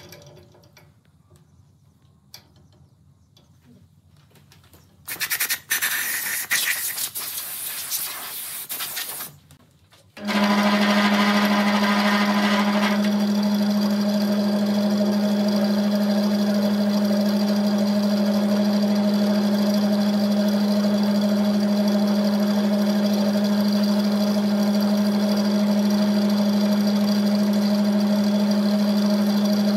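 A wood lathe's electric motor starts about a third of the way in and runs steadily with a strong low hum, the vase spinning on it for finishing. Before that there is a quiet stretch, then a few seconds of loud hissing.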